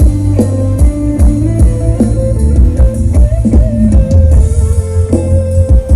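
Instrumental break of an Isan pop song played loud through a parade sound truck's speakers: a guitar melody over drum kit and heavy bass.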